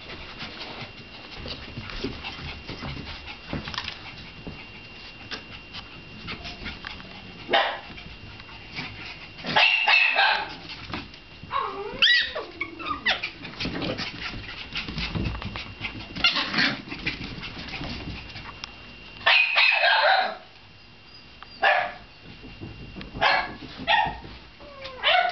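Shiba Inu puppies barking and yipping in play: a string of short, sharp barks, a few louder than the rest, with scattered light clicks of claws on the hardwood floor between them.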